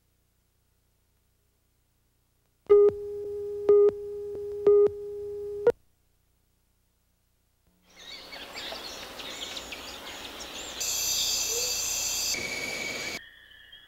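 A steady electronic tone for about three seconds, with a short spike about once a second, then cut off. After a pause, outdoor wildlife ambience with bird calls fades in, growing louder with steady high chirring tones before dropping back near the end.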